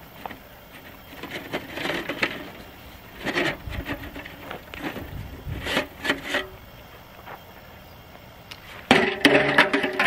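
3/8-inch copper tubing being bent by hand around a metal pipe into a coil: irregular scraping and creaking of the copper rubbing on the pipe, in a few separate bouts. Near the end a louder clattering rattle of metal on metal as the finished coil is handled.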